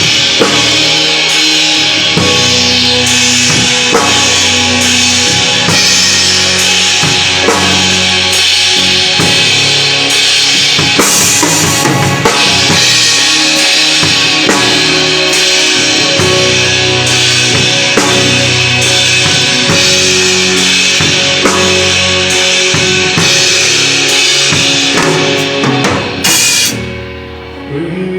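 Live band playing loudly during a sound check, with the drum kit to the fore: bass drum, snare and cymbals. The playing stops abruptly near the end.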